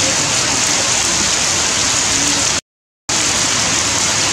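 Heavy rain falling steadily, splashing on wet stone and puddles. The sound drops out to dead silence for about half a second just past the middle, then the rain resumes.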